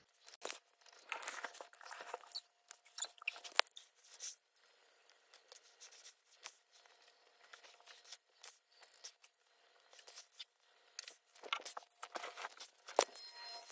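Close, irregular rustling and crackling with scattered sharp clicks: handling noise right at the microphone. It comes in short busy spells with quieter gaps between them.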